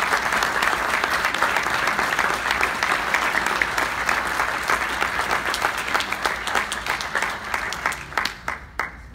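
Audience applauding, thinning to a few scattered claps and dying away near the end.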